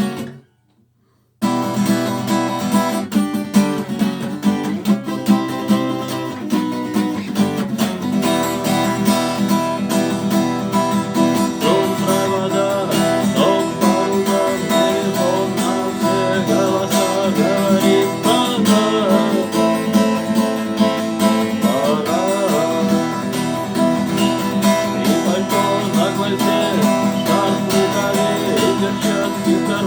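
Acoustic guitar music with a steady beat, starting after about a second and a half of silence.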